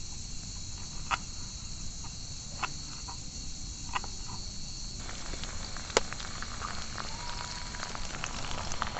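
Insects keep up a steady, high-pitched drone. Four short, sharp clicks cut through it, the loudest about six seconds in.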